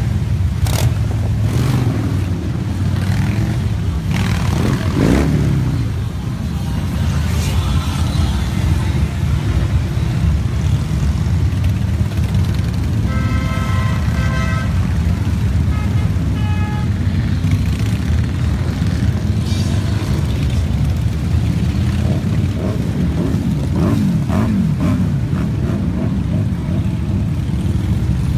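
Many motorcycle engines rumbling as a column of big touring and cruiser bikes rides slowly past, with bikes revving up about four seconds in and again near the end. A steady horn-like tone sounds briefly twice around the middle.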